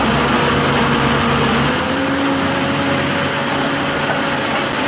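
Caterpillar 320D excavator's diesel engine running steadily, with a high hiss coming in about a second and a half in.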